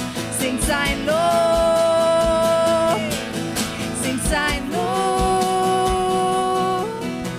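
Worship band music: a singer holds two long notes over band accompaniment with a low drum beat.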